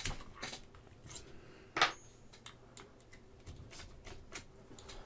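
Small metal tools and drill bits being handled on a workbench while a different drill bit is picked out: scattered light clicks and clinks, with one sharper clack about two seconds in.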